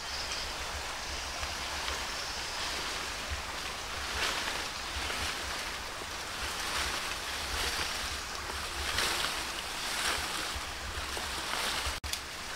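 Wind buffeting the microphone outdoors, a fluctuating low rumble over a steady rushing hiss. The sound drops out for an instant near the end.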